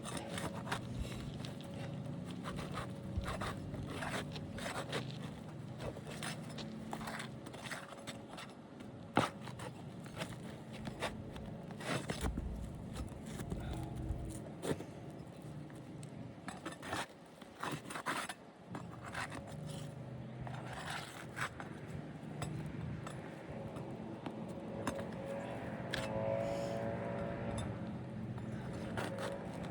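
A metal tool scraping and prying under asphalt roof shingles, with repeated sharp clicks and taps, as roofing nails are worked loose.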